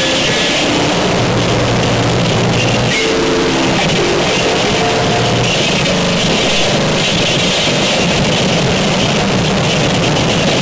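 Harsh noise music: a loud, unbroken wall of distorted noise at a constant level, with held droning tones that come in and drop out, shifting a few seconds apart.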